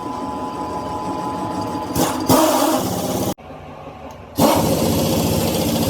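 Workshop machinery running with a steady pulsing drone, cut off abruptly about halfway through and starting again louder about a second later.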